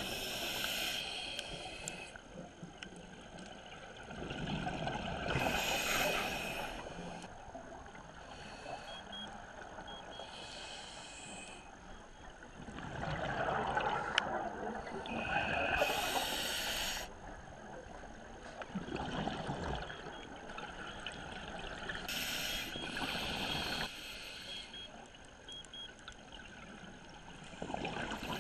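Scuba diver breathing through a regulator underwater: a burst of hiss and exhaled bubbles every four to six seconds, with a quieter bubbling background between breaths.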